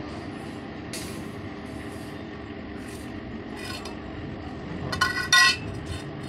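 A wire fan cage being lifted and moved on a concrete floor: light scrapes and rattles over a steady low rumble. About five seconds in, two short, loud, high-pitched sounds with a ringing edge stand out.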